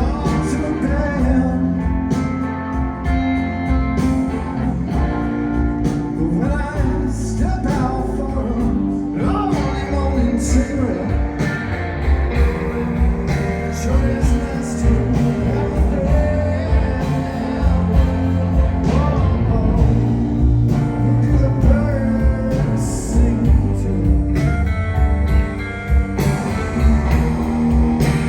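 A live band playing a blues-rock song, with a singer over guitar, bass and drums.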